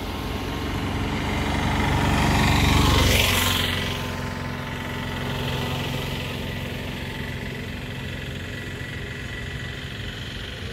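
A motor vehicle drives past close by on the road. Its engine and tyre noise grows louder to a peak about three seconds in, then falls away, and a steadier engine sound carries on more quietly after it.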